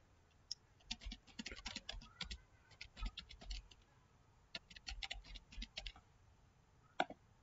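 Computer keyboard typing, faint, in two short runs of keystrokes with a pause of about a second between them, then a single click near the end.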